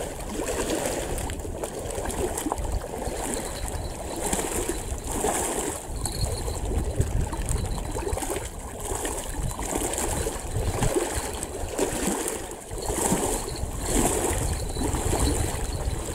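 Small waves lapping against a rocky lakeshore, with wind rumbling on the microphone.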